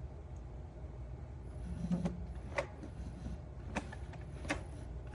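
Four sharp clicks or taps about a second apart, over a steady low hum.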